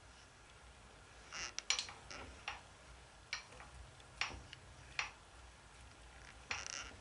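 Faint, irregular sharp metallic clicks and ticks, some in quick little clusters, as a milling machine's handwheel is wound by hand to run a dial test indicator across the work.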